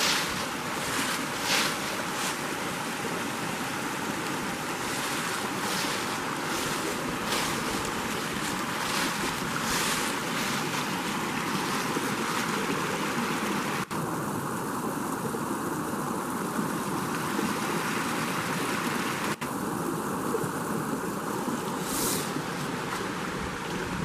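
Small rocky woodland brook running over stones and little cascades: a steady rush of flowing water.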